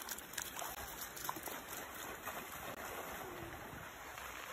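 Shallow sea water washing and splashing around a dog as it wades and swims out from the shore, a steady watery hiss with small splashes.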